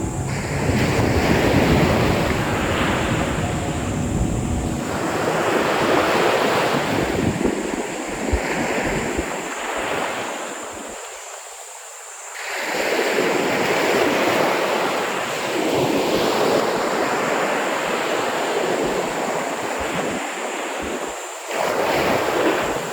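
Ocean waves breaking and washing up a beach in repeated swells, with wind buffeting the microphone; the surf dies down for a moment about halfway through before the next wave surges in.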